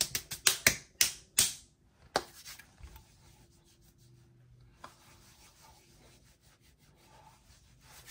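Hands rubbing and patting over skin close to the microphone: a quick run of loud strokes in the first second and a half, then faint scratchy rubbing.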